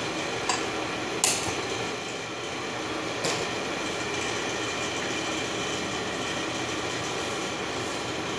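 Steady hiss of vegetables cooking in a pot on the stove, with a few sharp clinks of a utensil against the pot.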